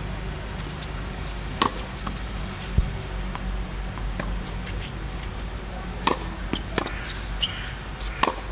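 Tennis racket strings hitting a tennis ball in a warm-up rally: five or so sharp pops at uneven intervals, over a steady low hum.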